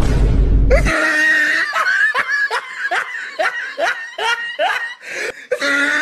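Laughter sound effect added after a comedy punchline: a run of high-pitched giggles and snickers, each a short rising or falling squeal, a few a second. It follows a brief burst of noise in the first second.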